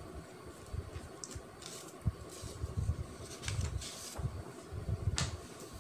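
Sheets of paper being handled and slid across a table, with several short rustling swishes and soft low bumps.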